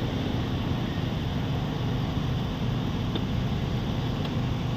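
Steady low hum of a car engine idling, with no rise or fall.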